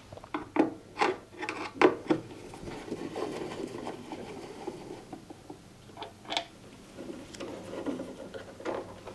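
Screws being undone from a washing machine's plastic control panel with a hand screwdriver: a quick run of clicks and knocks in the first two seconds, then scraping and rubbing, with another sharp click about six seconds in.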